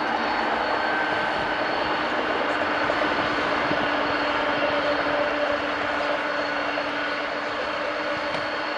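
Boeing 747-400F's turbofan engines at taxi power: a steady rushing roar with a steady high whine over it.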